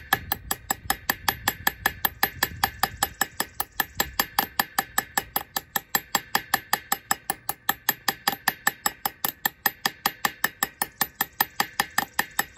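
Hammer tapping steadily and quickly on the steel installation cap of an SKF Speedi-Sleeve, about four or five light metal-on-metal strikes a second, each with a short ring. The thin steel sleeve is being driven down onto a Mk1 VW output flange's pitted seal surface and is not yet seated.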